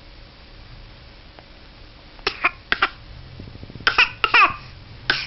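A baby's short coughs: three quick ones after a quiet start, then another run of voiced coughs falling in pitch, and one more at the end. The father suspects they are fake coughs.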